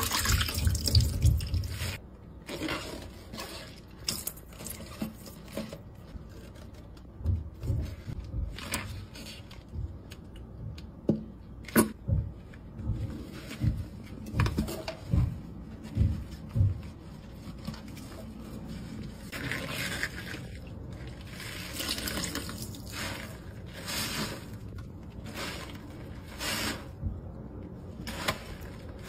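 Water and a green scouring pad being worked in a stainless steel kitchen sink: splashing and dripping, with many short sudden strokes of handling.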